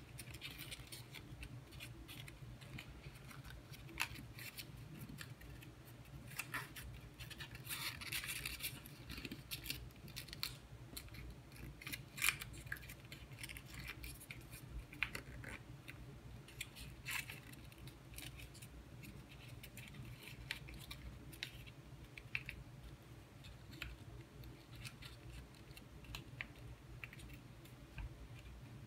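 Paper folding by hand: small origami paper cubes being creased, pressed and fitted together, giving scattered crinkles and small clicks of paper, with a busier stretch about a third of the way in. A low steady hum runs underneath.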